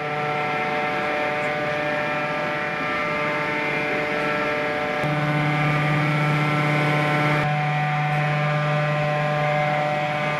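Steady electric hum of shipyard haulage machinery: rail-mounted electric winch units hauling the submarine out along the rails, over a hiss of machinery noise. The hum grows a little louder about five seconds in.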